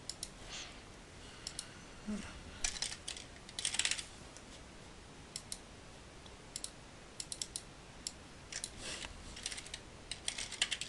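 Computer keyboard typing in several short bursts, mixed with mouse clicks, all fairly quiet.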